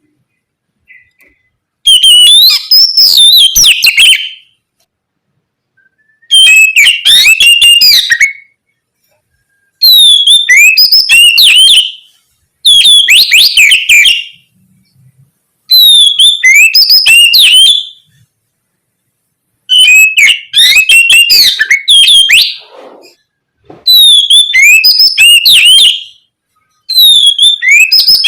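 Oriental magpie-robin (kacer) singing loud, varied whistled phrases of quick rising and falling notes, in seven bursts of about two seconds each separated by short pauses. This is the full, continuous 'ngeplong gacor' song that bird keepers play to stimulate other magpie-robins to sing.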